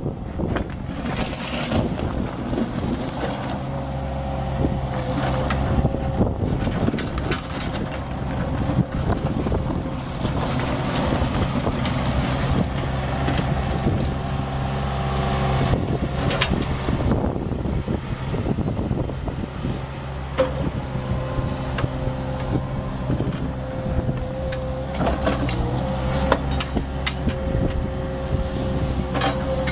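2000 Kubota KX61-2 mini excavator at work, its diesel engine running steadily with a steady whine over it, and occasional knocks as the machine tracks and moves its arm and bucket.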